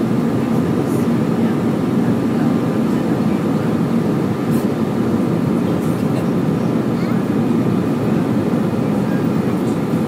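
Airbus A320 in flight heard from inside the cabin beside the wing engine: a loud, steady jet-engine and airflow rumble that stays even throughout.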